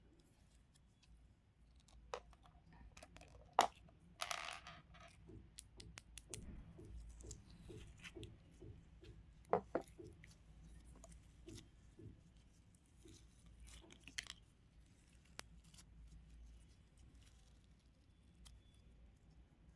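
Close handling of ASMR craft toys: scattered small clicks and crunches. There is a sharp click about three and a half seconds in, a short rustling crunch just after, a run of soft even taps through the middle, and another sharp click near the middle.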